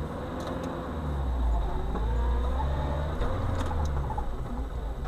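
Car engine and road rumble heard from inside the cabin as the car pulls away and turns, with a faint rising engine note and a few light clicks.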